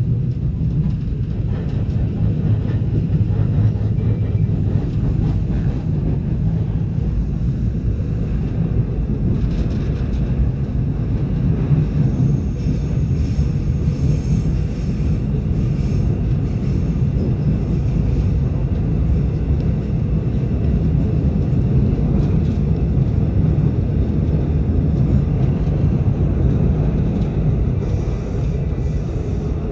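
Korail's newer-type Seoul Subway Line 4 electric train running through a tunnel, heard from inside the car: a steady low rumble of wheels and running gear.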